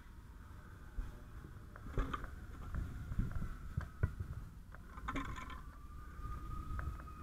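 Scattered knocks and clunks of a firefighter's boots and tools on a flat roof, over a low steady rumble. A faint thin high tone comes in about five seconds in.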